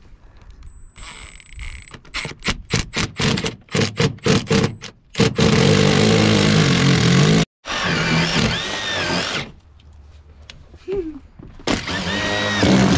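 Cordless drill with a twist bit boring bolt holes down through vinyl plank flooring and the wooden subfloor: a run of short trigger bursts, then the motor running steadily under load with a wavering whine, stopping and starting again near the end.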